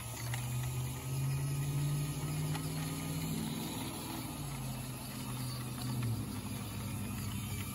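The electric motor and gears of a WPL C-24 RC crawler truck whining as it creeps over wet gravel, with the pitch stepping up and down with the throttle. The pitch drops back about six seconds in.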